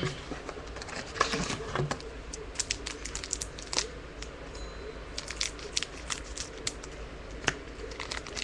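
Trading cards and their pack wrapper being handled, with irregular crinkling and light clicking, busiest about a second in.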